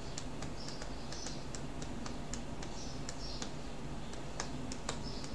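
Faint, sharp clicks at uneven spacing, about three a second, as from fingers on a computer keyboard or mouse, over a low steady hum.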